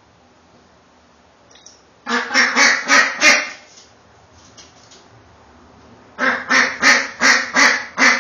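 Khaki Campbell ducks quacking: a run of about six quick, loud quacks about two seconds in, and a longer run of about nine near the end.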